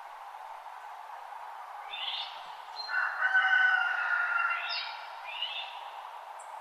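Wild birds calling at dawn, picked up through a parabolic dish: a few short chirps and one longer pitched call of about a second and a half in the middle, over a steady background hiss.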